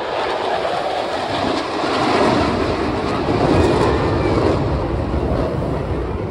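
Jet noise from Blue Angels Boeing F/A-18 Super Hornets flying past: a rushing roar that swells over the first two seconds, peaks, and eases off in the last couple of seconds.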